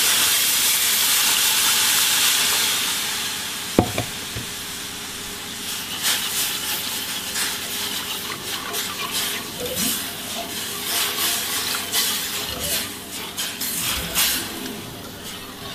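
Broth poured into a hot butter-and-flour roux in a stainless steel pan, sizzling loudly at first and dying down over the first few seconds. Then a wire whisk stirring the thin sauce, with a sharp knock about four seconds in and many quick clicks and scrapes of the whisk against the pan.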